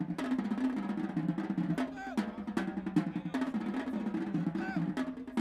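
Marching band drumline playing a cadence: rapid snare drum strokes and rolls over pitched tenor and bass drums moving between notes.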